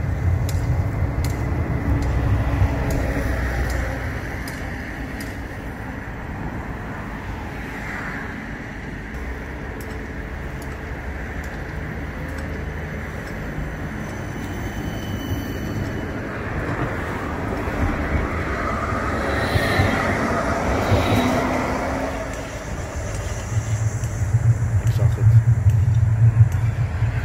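CAF Urbos 100 tram running, its low rumble loud at first, easing off after a few seconds and building again near the end.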